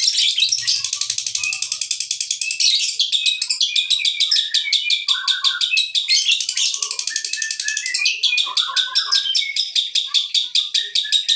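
Fischer's lovebird in 'ngekek panjang', the long unbroken chattering song, a rapid high-pitched string of notes at roughly ten a second with only brief catches for breath.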